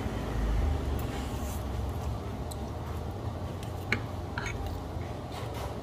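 Eating sounds: noodles being chewed and slurped, with a few short clicks of a metal spoon and fork against the plate, over a low steady background rumble.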